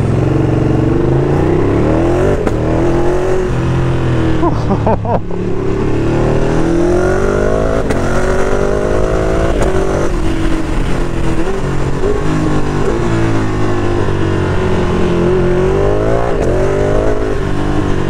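Sport motorcycle with an SC Project exhaust under hard riding: the engine note climbs in pitch and drops several times as it accelerates and shifts gear with its quick shifter, then eases off toward the end.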